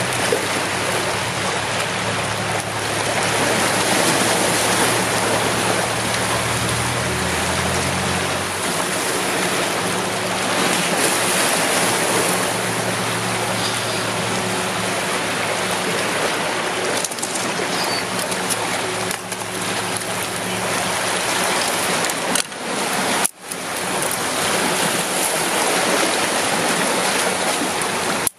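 Sea water washing against a rocky shore, a steady rushing noise, with a low hum underneath that stops about a third of the way in.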